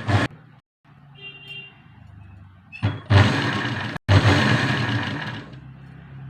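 Sewing machine running fast as it stitches fabric: a brief burst at the start, then a longer run of rapid stitching from about three seconds in, lasting about two and a half seconds.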